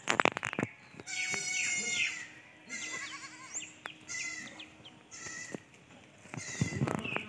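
Goat bleating, four calls in a row, the first the longest. Knocks and clicks come at the start and again near the end.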